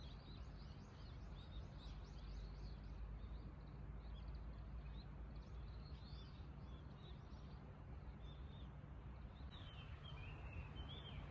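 Many small birds chirping and twittering over a steady low rumble of wind on the microphone.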